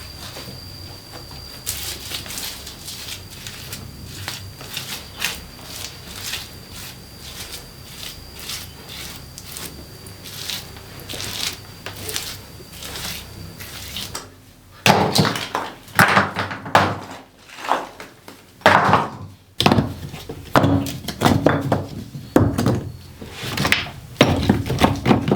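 Wood being knocked and handled: a long run of light taps and clatter, then from a little past halfway louder, irregular heavy thuds of wood striking wood.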